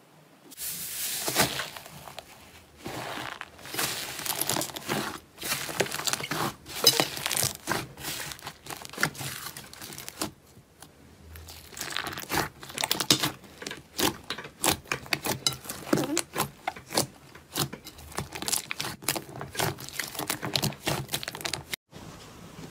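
Hands pressing and kneading a large mass of soft yellow slime in a glass bowl, giving off dense, irregular crackling and popping as trapped air is squeezed out, in spells of a second or two with short pauses.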